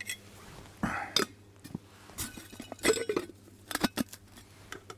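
Small metal camp cookware clinking and knocking as it is handled, a few separate clinks with the loudest about three seconds in.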